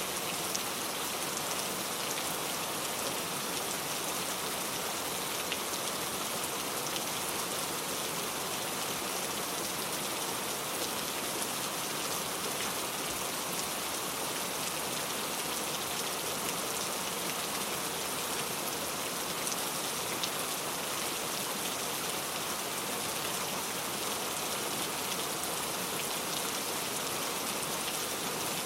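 Heavy rain falling and pattering on surfaces, a steady dense hiss of drops with no letup.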